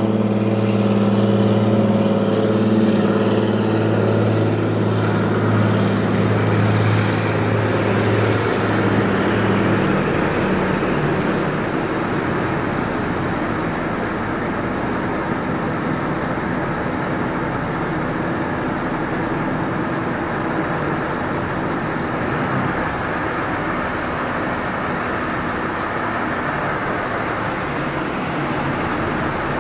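Car ferry MV Quinsam's diesel engines running with a steady low hum that cuts off about ten seconds in as the ship manoeuvres at its slip, leaving a steady rushing noise.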